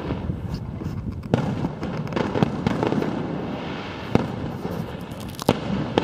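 Aerial fireworks shells bursting, with sharp bangs about a second in, at about four seconds and twice near the end, over a continuous low rumble of other bursts.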